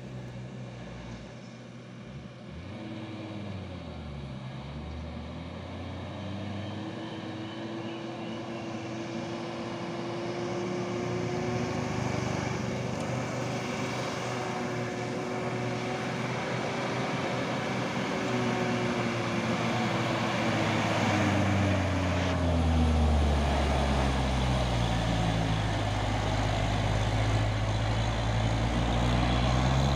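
Diesel box truck's engine labouring up a steep climb, growing steadily louder as it approaches and passes close by. Its pitch holds steady through the middle, then drops over the last several seconds as a deep rumble builds.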